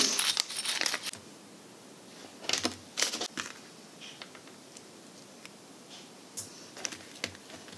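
Small metallic clicks and taps from metal butterfly clutch backs being pressed onto enamel pin posts and the pins being handled on a tabletop. A quick cluster of clicks comes in the first second, then a few scattered single clicks.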